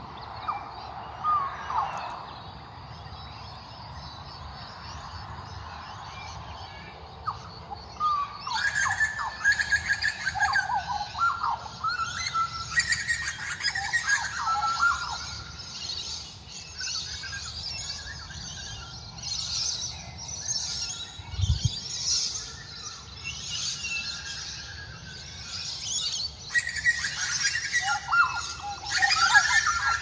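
Butcherbirds calling with fluty, gliding notes among many other birds chirping in a dawn chorus. The calling comes in two busy spells, one starting about a third of the way in and another near the end, with a brief low thump midway.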